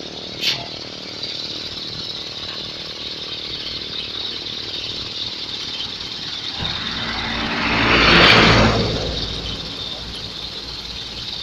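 A bus passing close by on the road: its engine and road noise build up, peak a little after eight seconds and fade away, over a steady background of traffic. No telolet horn is heard.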